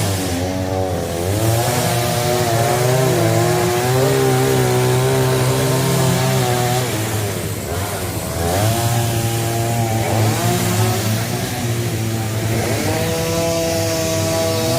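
Chainsaw engine running at high revs, its pitch dropping and climbing again about a second in, around eight seconds and near twelve seconds.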